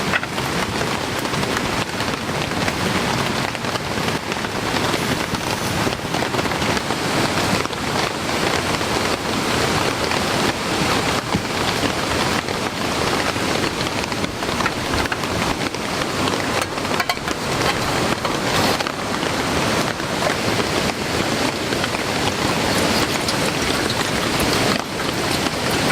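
Heavy rain falling steadily, a dense patter of drops on the surface around it.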